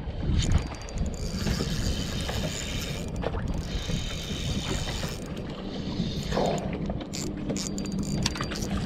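Spinning reel being cranked while fighting a hooked smallmouth bass: the reel's gears whir in spells, over wind and water.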